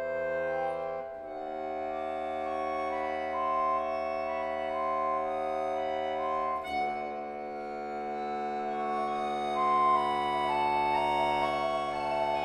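Concert accordion holding sustained chords, which shift about a second in and again near seven seconds, with a line of short higher notes played over them.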